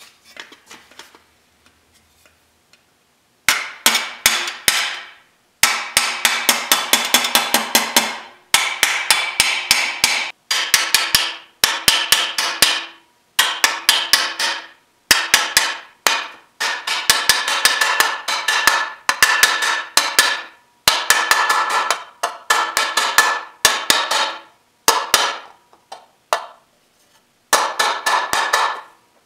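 Hammer-and-dolly work on a thin aluminum motorcycle fender: a small hammer strikes the panel over a steel dolly clamped in a vise, cleaning up the narrow edge of a recessed bead. The blows start about three and a half seconds in and come in quick runs of sharp, ringing metallic strikes with short pauses between runs.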